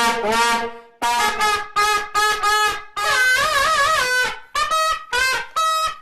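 Plastic vuvuzela horns blown in a series of about eight short blasts at different pitches. One longer blast in the middle wavers up and down, and the last few are higher.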